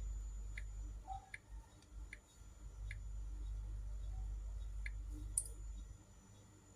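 Kitchen knife clicking on a cutting board while dicing green pepper: a handful of separate light knife strikes, roughly one every three-quarters of a second, with a sharper click near the end, over a low steady hum.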